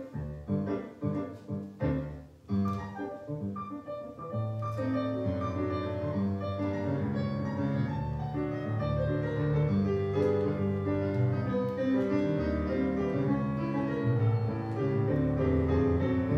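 Solo piano playing a ballet-class barre accompaniment for a warm-up exercise. It opens with separately struck chords, then runs on into continuous flowing notes.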